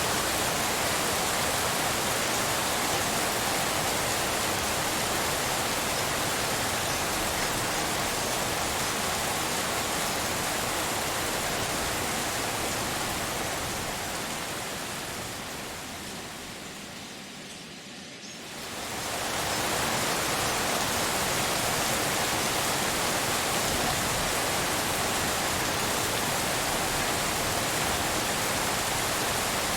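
Steady, even rain hiss shaped as pink noise. About halfway through it fades down over a few seconds, almost cuts out, then swells quickly back to full level.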